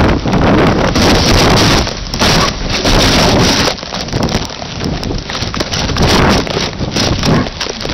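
Wind buffeting a kite-mounted camera's microphone, a loud rushing roar that swells and eases every second or so as the kite spins out of control toward the ground.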